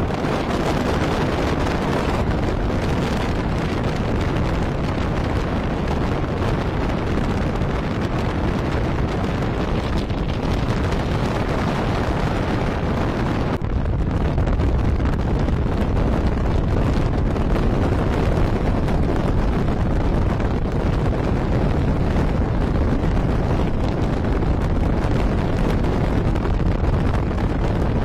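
Steady rumble and road noise of a moving vehicle, with wind buffeting the microphone; the low rumble grows a little louder about halfway through.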